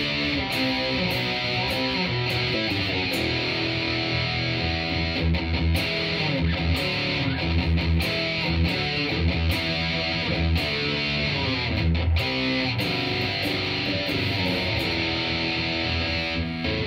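Electric guitar played through a Boss Metal Zone distortion pedal into a Crate Power Block amp: heavily distorted riffing and held chords, with rhythmic low notes.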